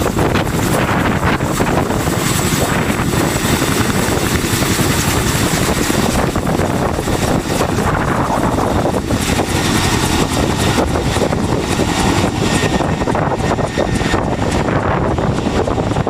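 Two tandem-rotor CH-47 Chinook helicopters flying low overhead, giving a loud, steady rotor and twin-turbine engine noise with a faint high whine over it.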